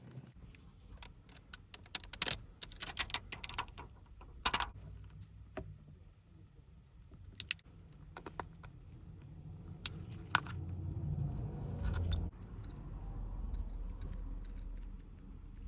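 Irregular sharp clicks and light metallic clinks of small repair tools and phone parts being handled on a work surface, over a low rumble that grows louder in the second half.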